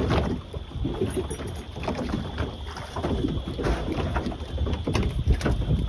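Choppy water slapping against the hull of a small open fishing boat, with scattered knocks and rustles on board.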